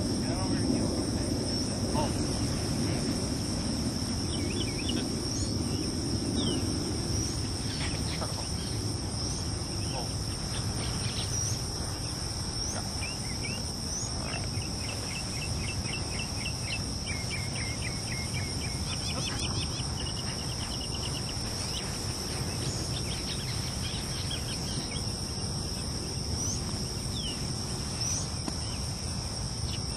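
A steady insect chorus sounding two unbroken high-pitched tones, with short chirps scattered over it and a quick run of chirps in the middle.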